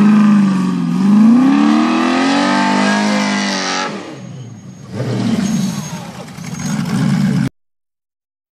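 Off-road buggy engine revving hard as the buggy climbs a sand hill, its pitch rising and falling over the first four seconds, dropping away briefly, then revving again before the sound cuts off suddenly.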